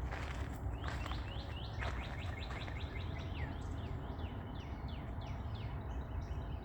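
A bird calling in a fast series of short, downward-sliding chirps, about four a second, over a steady low outdoor rumble.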